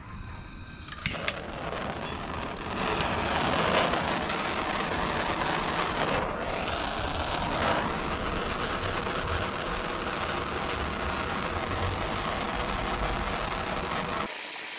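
Handheld gas torch lit with a click about a second in, then burning with a steady hiss while its flame shrinks heat-shrink tubing onto a crimped copper cable lug.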